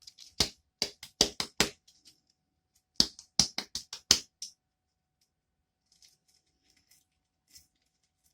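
Sharp taps and clicks from handling a small bottle of denture repair powder while emptying it into a mixing container: two quick runs of about five clicks each, then a few faint ticks.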